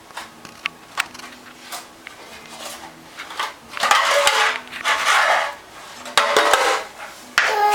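Metal pots and pans being banged and rattled by a toddler: a few sharp single knocks, then several loud clattering, scraping bursts with some ringing metal.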